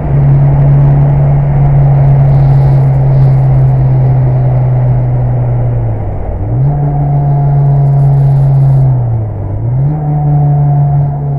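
Mitsubishi Lancer Evolution VI Tommi Makinen Edition's turbocharged four-cylinder engine running hard at steady revs under heavy road and wind rumble. The engine note dips briefly twice, about six and nine seconds in, and climbs straight back each time.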